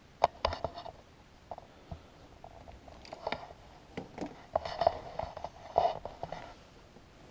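Irregular clicks, knocks and rustles of a person moving about inside a van and climbing out through its door, with the sharpest knocks about a quarter second in and again around five to six seconds in.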